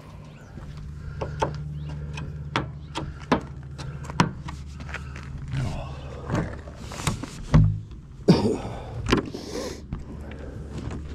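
Scrap metal pieces being handled, a series of sharp knocks and thumps with a few louder bangs and scrapes near the end, over a steady low hum like an idling vehicle engine.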